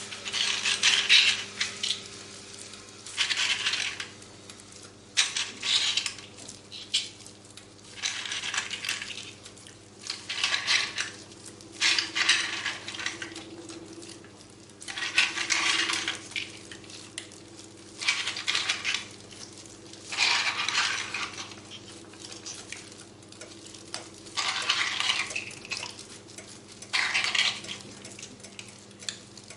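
Clams being added to a pan of paella, their shells clattering against the pan and each other in repeated short bursts every one to three seconds.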